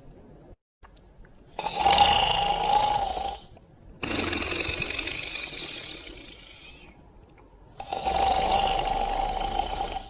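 Cartoon dog character snoring in long, slow breaths: a snore with a steady tone through it about two seconds in, a long fading breath out, then another toned snore near the end.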